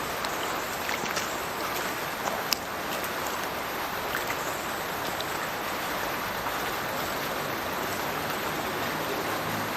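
Water of a burn falling from a culvert outfall into a river: a steady rush and splash, with a few sharper individual splashes, the loudest about two and a half seconds in.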